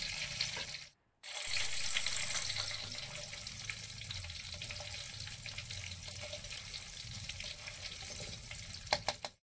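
Batter-coated tofu deep-frying in a wok of hot oil: a steady sizzle with fine crackling. It cuts out completely for about half a second about a second in, then carries on.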